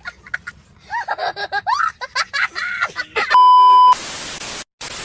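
A young child's voice, with short bursts and then longer rising-and-falling cries, followed at about three seconds by a loud steady test-tone beep lasting about half a second and then TV static hiss that drops out briefly: a glitch transition effect.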